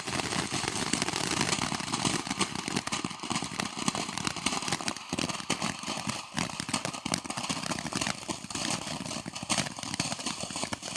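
Boomer Large Friendship Fountain, a boxed consumer fountain firework, burning: a steady hissing spray of sparks packed with rapid small crackles.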